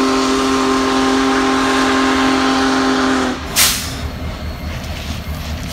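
Union Pacific Big Boy 4014's multi-chime steam whistle blowing one long, loud chord that cuts off about three seconds in, followed by a brief hiss, over the low rumble of the passing train.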